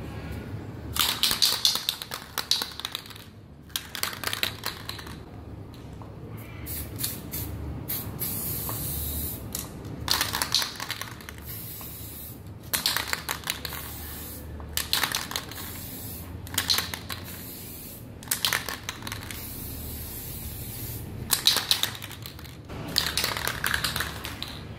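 Aerosol spray paint can hissing in about ten short bursts of one to two seconds each, with brief pauses between them, as further coats of paint are sprayed on.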